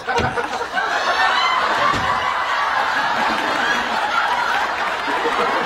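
Studio audience laughing together, swelling up just after the start and carrying on steadily.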